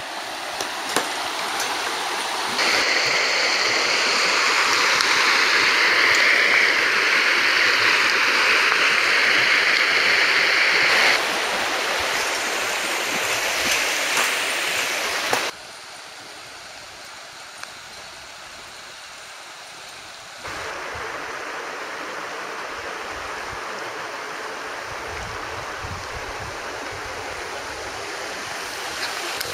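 Shallow, stony river rushing steadily. The rush is loudest in the first third, drops sharply about halfway through and picks up again a few seconds later.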